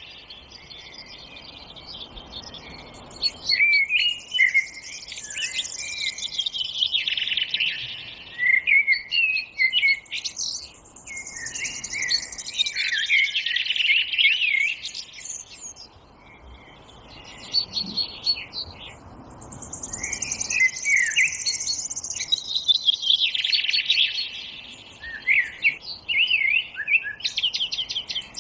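Songbirds singing: several birds' chirps, trills and whistled phrases overlapping in bouts of a few seconds, with short quieter gaps between them.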